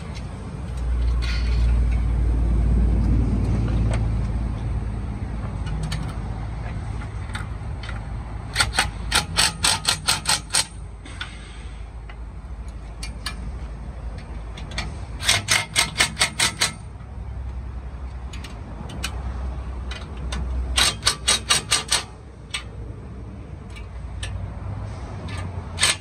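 Cordless impact driver hammering nuts tight on a boat-trailer step's U-bolts, in three bursts of rapid impacts, each a second or two long, with a fourth burst starting at the very end. A low rumble runs under the first few seconds.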